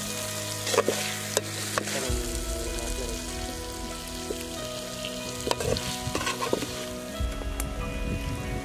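Chicken pieces sizzling in a metal pan while a metal ladle stirs and scoops them, with a few sharp clinks of the ladle against the pan. Background music with held notes runs underneath.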